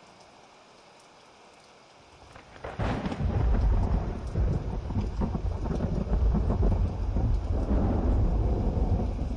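Thunderstorm: steady rain hiss, then about three seconds in a thunderclap cracks and rolls into a long, loud, deep rumble over the rain.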